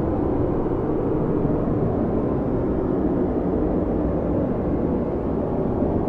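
Strong snowstorm wind blowing steadily: a deep, even rush with no single gust standing out.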